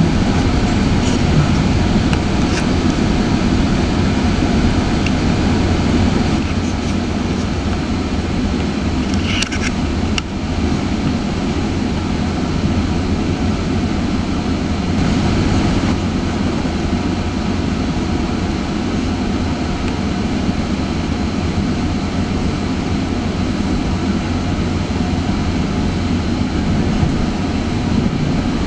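GO Transit bi-level passenger coach running at speed, heard from inside: a steady rumble of wheels on rail, with a few brief clicks about nine to ten seconds in.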